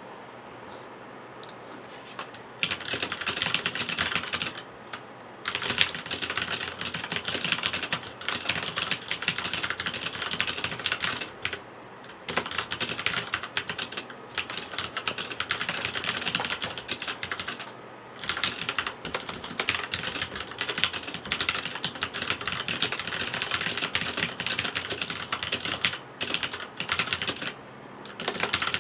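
Fast typing on a Leopold tenkeyless mechanical keyboard with Cherry MX Red linear switches: a dense clatter of keystrokes in runs of several seconds, with short pauses between them.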